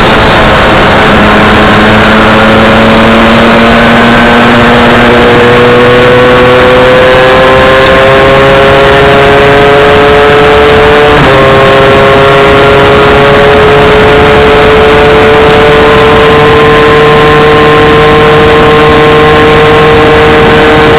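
MZ 250 two-stroke single-cylinder race bike engine at full throttle, heard from onboard with wind noise. Its note climbs steadily as it pulls through a gear. About eleven seconds in, an upshift drops the pitch, and then it climbs again.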